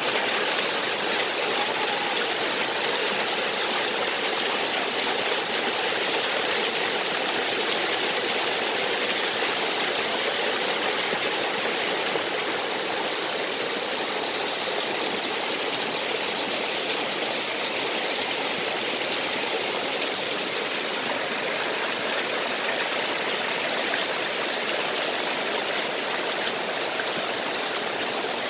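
A small waterfall and stream: a steady rush of falling and flowing water.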